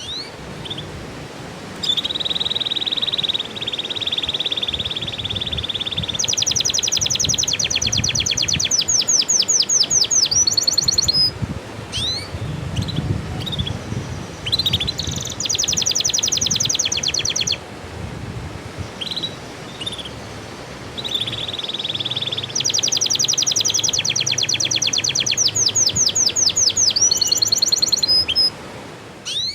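Canary singing: a long steady trill, then fast rattling trills and a run of quick rising sweeps, the phrase coming twice with short chirps between. It is a lure song (pancingan) played to get canaries singing again when they have gone silent or just finished the moult.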